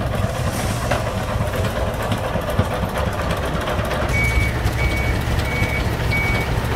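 An engine running steadily; about four seconds in, a Komatsu forklift's reversing alarm starts beeping, a single high tone repeating at an even pace of a little under two beeps a second as the forklift handles a pallet of cement bags.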